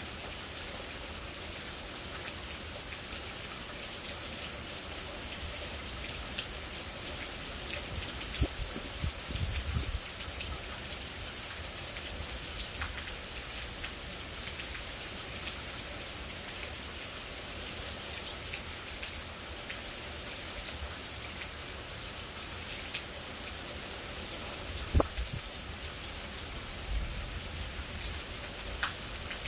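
Steady thunderstorm rain falling on surfaces. A sharp knock comes about eight seconds in and another about 25 seconds in, each followed by a short low rumble.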